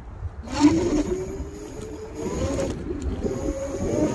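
Kaabo Wolf electric scooter's hub motor whining under throttle, the whine rising in pitch as the scooter picks up speed, dipping briefly and rising again near the end, over a low rumble of wind and road. A short rush of noise comes about half a second in.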